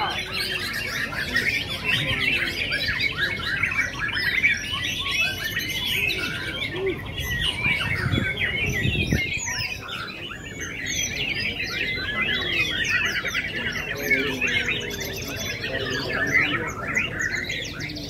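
Many white-rumped shamas (murai batu) singing at once in a dense chorus of overlapping whistles, trills and chirps, with no pauses.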